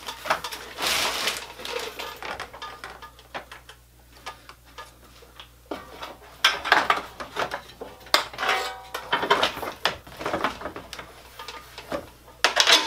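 Irregular clinks, knocks and scrapes of metal and plastic parts as a car radiator is set into the core support and bolted in place, coming in several separate bursts of handling noise.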